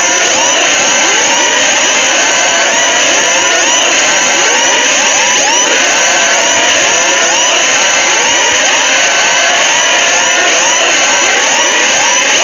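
Loud mock emergency-alert alarm audio made of many overlapping siren-like tones, each sweeping up and back down, several each second at different pitches, over a steady noisy hiss.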